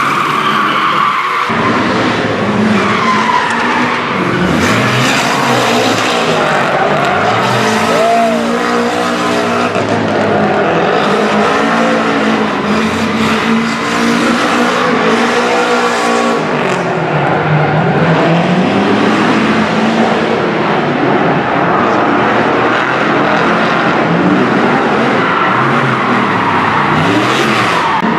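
Drift car sliding at full lock: its engine revs rise and fall with the throttle, over continuous tyre squeal and skidding.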